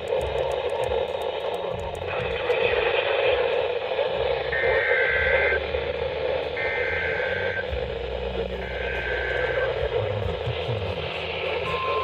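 NOAA Weather Radio broadcast through a receiver's static hiss: three one-second bursts of the warbling two-tone SAME digital header that opens an Emergency Alert System message. Near the end the long steady warning alarm tone begins, the signal that a warning is about to be read.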